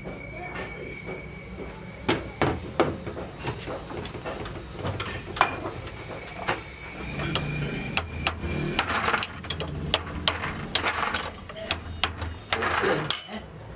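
Hand hammer striking a steel drift set in a hydraulic pump housing's bearing bore: a run of sharp, irregular metal knocks that come faster in the second half, driving the bearing out of the housing.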